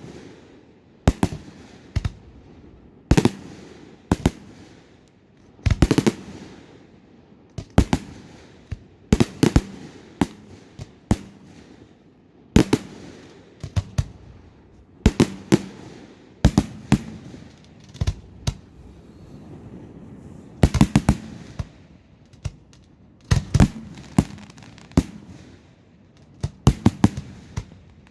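Fireworks display: aerial shells bursting with sharp bangs every second or two, some in quick clusters of two or three, each followed by a low rolling echo.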